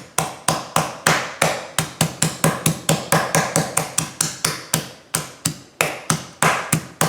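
Meat pounder striking a boneless chicken breast cutlet to flatten it to an even thickness, sharp blows at a steady pace of about four a second.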